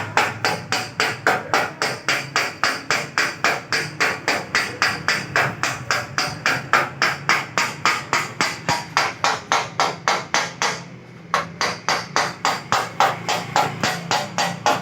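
Hammer striking car-body sheet metal in quick, even blows, about four a second, each with a short metallic ring. The blows stop for half a second about eleven seconds in, then resume: panel-beating during dent repair.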